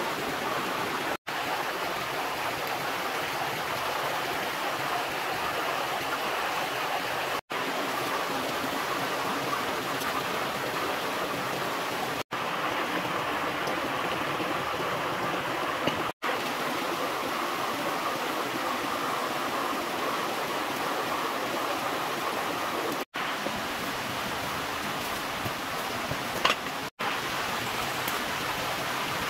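Steady rushing of a flowing stream, broken by brief silent gaps six times, with a single sharp click a few seconds before the end.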